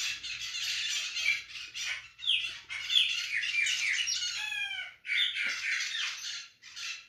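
Birds calling: a busy chatter of many short chirps and squawks, with runs of quick falling notes around the middle.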